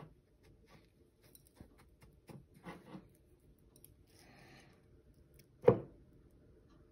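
Faint scrapes, rustles and light clicks of a hand dredging perch fillets through breadcrumb mix and dipping them in an egg wash in bowls, with one sharper knock near the end.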